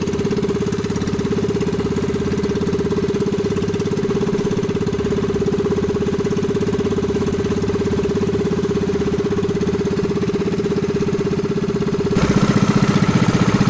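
Small boat's engine running at a steady pitch under way, growing louder and rougher for the last second or so.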